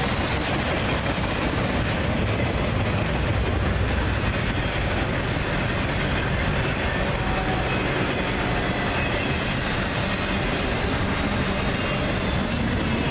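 Intermodal freight cars carrying truck trailers rolling past, their wheels running steadily on the rails.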